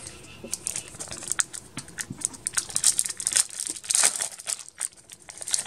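Foil Yu-Gi-Oh! booster pack wrapper being torn open and crinkled in the hands, a dense run of sharp crackles.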